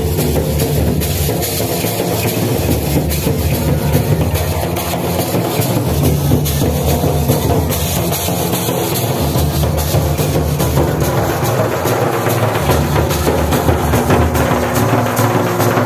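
Wedding drum band playing large barrel drums and a flat drum in a fast, steady dance rhythm.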